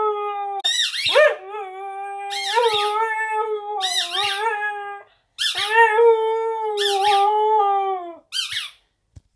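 Young Siberian husky howling for her squeak toy: three long, steady howls and a short last one, while a rubber squeak toy is squeezed above her about six times.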